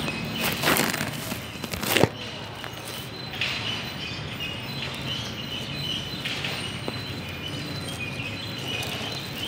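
Outdoor background noise with faint short chirps, likely small birds, and a loud sharp knock about two seconds in.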